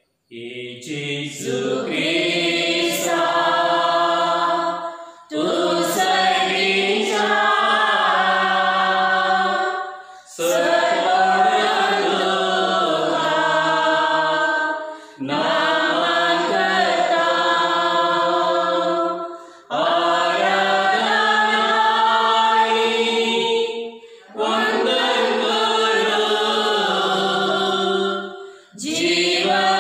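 Voices singing a slow devotional hymn in phrases about five seconds long, with held notes and short breaks for breath between phrases.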